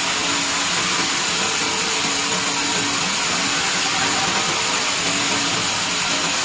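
Band-saw mill blade ripping lengthwise through a squared pine beam as the carriage feeds it past: a steady, dense hiss with a thin high whine above it.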